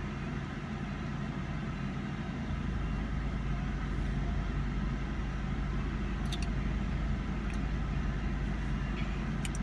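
Car idling, heard from inside the cabin: a steady low hum that gets a little stronger about three seconds in, with a few faint clicks.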